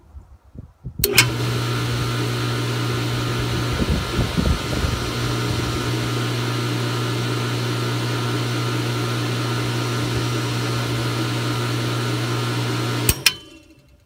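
Square D pressure switch contacts click shut about a second in and the Goulds deep well pump starts, running with a steady electric hum for about twelve seconds. Near the end the contacts click open and the pump stops. This is a normal on-off cycle on freshly replaced contacts, not short cycling, though the pump cycles on about every 12 to 15 seconds.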